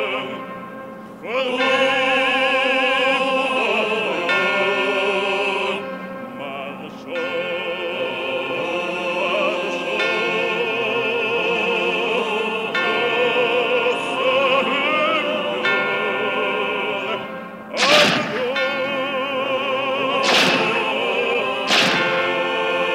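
Operatic singing with heavy vibrato over music. Near the end, three loud sharp bangs ring out about two seconds apart.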